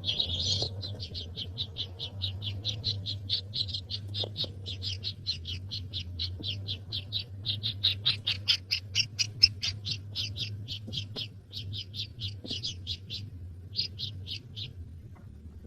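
Baby bird calling in a long run of short high chirps, about four a second, with a short pause near the end before they stop. A faint steady low hum lies underneath.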